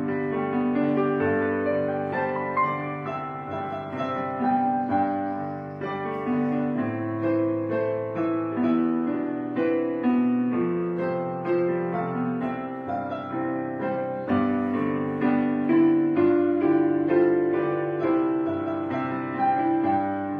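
Background piano music: a melody of struck notes, each held and ringing on into the next.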